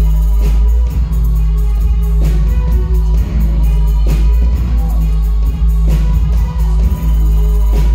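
Live indie band playing loud through the venue's sound system, with a heavy, sustained bass line, a regular beat, keyboards and guitar.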